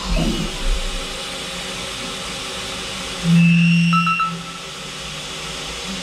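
End mill cutting in a low-rigidity Swiss-type automatic lathe, over a steady machine hiss. About three seconds in, a loud steady droning tone comes in for about a second with a few ticks. This is the high machining noise that goes with vibration of the general-purpose end mill on this machine.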